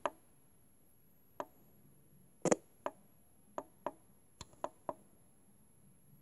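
FM radio receiver muted while it scans and is retuned, leaving near silence broken by about eight small, irregular clicks from its tuning buttons being pressed; the loudest is a double click about two and a half seconds in.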